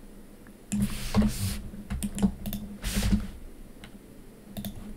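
Computer keyboard keys pressed in short irregular clusters of clicks, shortcut keystrokes while working in 3D software, with a couple of brief soft hisses in between.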